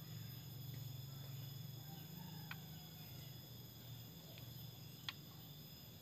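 Steady high-pitched chirring of insects, several thin tones held without a break, with a low background hum. Two short sharp clicks sound, one about halfway through and one near the end.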